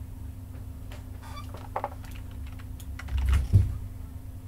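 Scattered clicks from a computer keyboard and mouse, with a duller, louder knock about three and a half seconds in, over a steady low hum.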